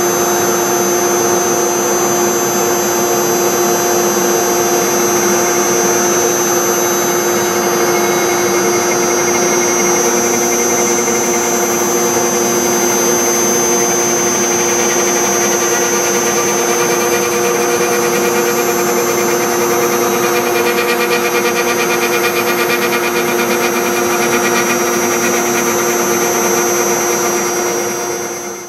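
CNC router spindle running steadily with a V-bit carving a scroll groove into a poplar blank. It gives a steady whine over cutting noise, then fades out near the end.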